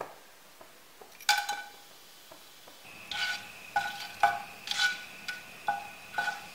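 Whole spices (cinnamon, cloves, cardamom, star anise) going into hot coconut oil in a nonstick kadai. A sharp ringing clink comes about a second in as they are tipped in. From about halfway there is a faint sizzle, and a wooden spatula stirring them knocks against the pan over and over, about two to three times a second.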